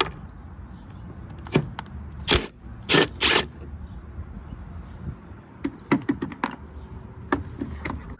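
Scattered metallic clicks and clinks of hand tools and small bolts being handled, with three short scraping rasps a little over two seconds in and a quick cluster of light clicks about six seconds in.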